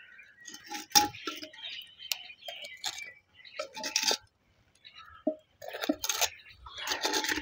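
Metal tongs clinking and scraping against an earthen pot and a clay bowl as fried yaji are lifted out and set down, a scattered series of light clinks and knocks.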